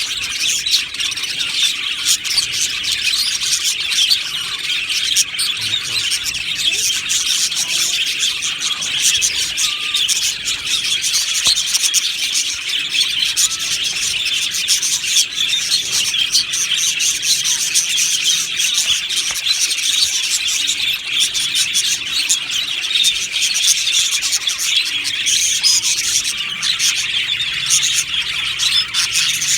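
A flock of budgerigars chattering together: a dense, unbroken twittering of many birds calling at once.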